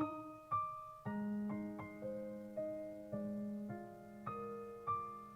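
Soft piano closing out a pop ballad: single notes and chords struck roughly every half second, each fading away.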